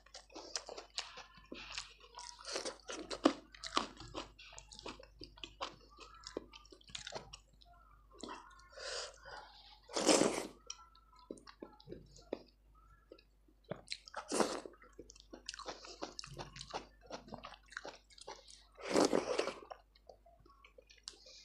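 Close-miked chewing of soft, wet food, with lip smacks and some crunching. Three louder, longer wet mouth sounds stand out, about ten, fourteen and nineteen seconds in.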